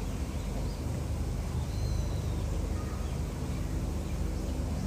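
Steady low outdoor background rumble, with a short high bird call about two seconds in.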